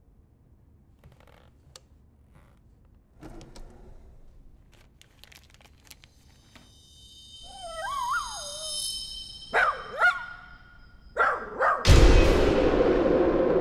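Horror-film sound design: faint clicks and knocks, then a rising high screech with wavering, wailing tones, a few sharp swoops, and near the end a sudden loud hit that rings on in a sustained, slowly fading tone, a jump-scare stinger as the sheeted figure appears.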